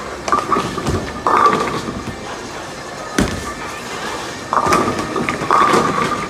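Bowling alley clatter: several crashes of pins and thuds of balls from the lanes, the loudest about a second in and again near the end, over background music.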